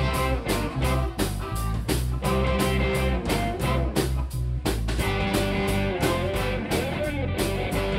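Live blues band playing: electric guitar over bass and a steady drum beat, with saxophone in the band, some notes bending in pitch near the end.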